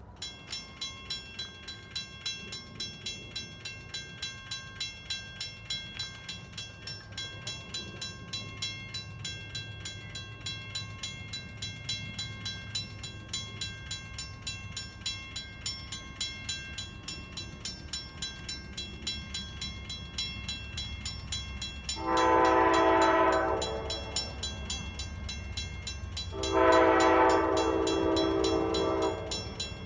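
Grade-crossing warning bell ringing with rapid, even strikes while the low rumble of an approaching Amtrak diesel locomotive grows. About 22 seconds in the locomotive sounds two long horn blasts, the opening of the crossing horn signal.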